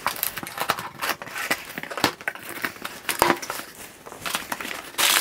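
Cardboard shipping box being opened by hand: packing tape cut and pulled off, flaps opened and packing paper rustling, in a run of short clicks and rustles with a louder rustle near the end.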